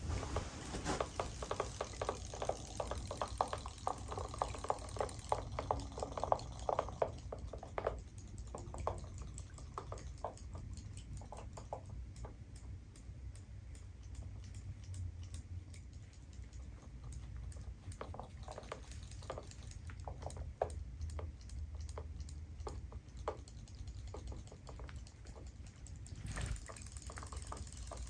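Robo Fish toy fish swimming in a plastic tub of water, their flapping tails making a rapid patter of small clicks and splashes that comes in busy runs with quieter stretches between.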